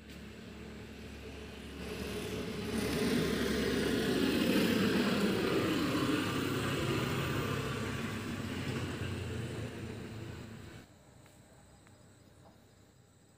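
A motor vehicle passing by: its noise swells over a few seconds, then slowly fades, and cuts off abruptly about eleven seconds in.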